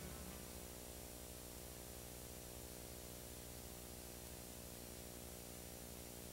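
Faint steady hiss with a low hum underneath: the background noise of the film transfer, with no other sound and no music.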